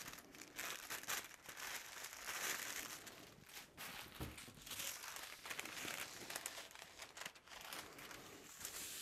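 Old paper sewing-pattern pieces being handled and unfolded, a soft, irregular rustling and crinkling of paper that comes and goes.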